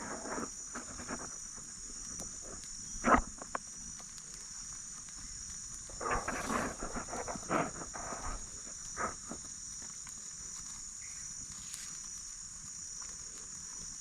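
A steady, high-pitched insect chorus, with scattered short knocks and rustles over it: the loudest about three seconds in, and a cluster around six to eight seconds in.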